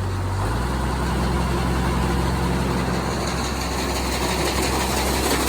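Farm machinery engine running steadily, throttled up about half a second in and holding at a higher speed; the throttle is set a little too high.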